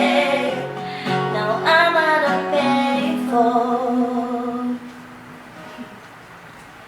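The sung ending of an acoustic guitar song. Voices sing the last line over guitar until about three seconds in, and the guitar rings on until about five seconds in. Then only faint room sound is left.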